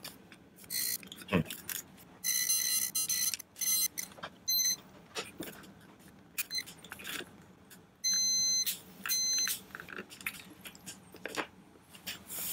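Digital multimeter's continuity beeper sounding in several beeps, the longest about a second, amid light clicks of the test probes on the switch terminals: the meter finding continuity through the trigger switch, a sign the switch is working.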